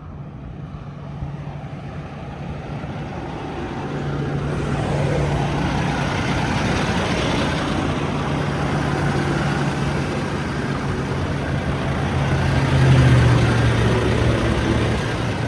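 Semi-truck diesel engine running at a steady pitch, growing louder over the first few seconds and loudest about thirteen seconds in.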